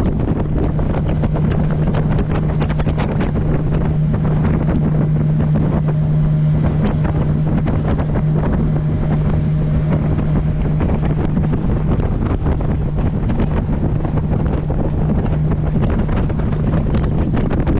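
Boat's outboard engine running steadily with a low hum, under heavy wind buffeting on the microphone and the hull slapping through the water.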